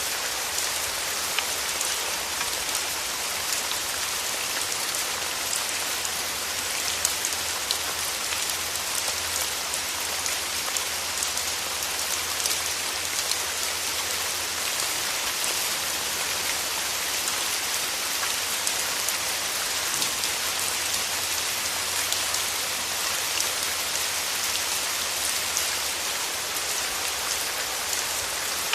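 Steady rain falling and pattering on a surface, an even hiss with dense small drop ticks.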